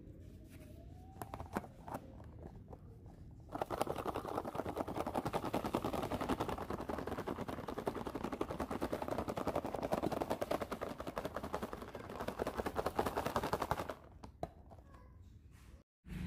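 Crispy fried mushroom pieces rattling hard inside a closed plastic food container as it is shaken to coat them with chili powder. A few light clicks of the container being handled come first, the rapid rattling starts about three and a half seconds in and stops a couple of seconds before the end.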